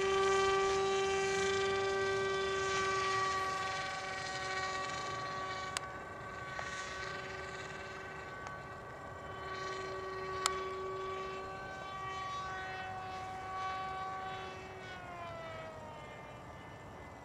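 Scratch-built model airplane's motor and propeller droning overhead at a steady pitch, the pitch sliding down about fifteen seconds in. Two sharp clicks, about six and ten seconds in.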